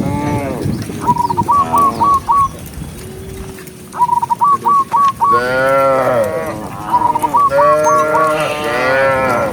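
Cow mooing in loud arching calls, alternating with quick runs of four or five short, high chirping notes; the chirp-and-moo pattern repeats about every three seconds.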